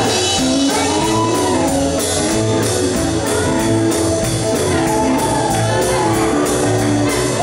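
Live gospel band of piano, electric guitars, bass guitar and drum kit playing an upbeat song with a steady driving beat, with voices singing over it.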